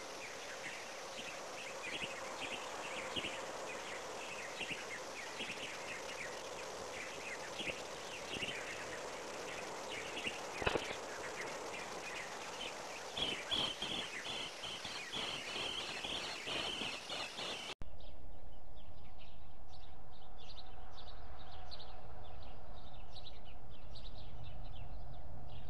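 Forest ambience with small birds chirping again and again and a few sharp clicks. About two-thirds of the way through it cuts abruptly to a louder, steady background with a low hum and faint high chirps.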